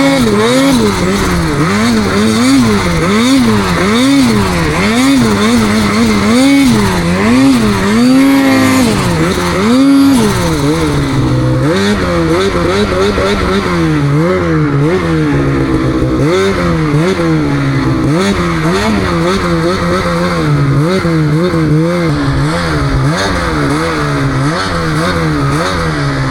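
Snowmobile engine revving up and down over and over as the throttle is worked, its pitch rising and falling about once a second, with one longer rise and a sharp drop about ten seconds in.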